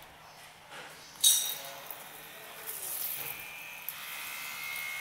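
Handheld portable electric bidet sprayer: a sharp click about a second in, then its small battery-powered water pump starts and runs with a steady high whine from about three seconds in.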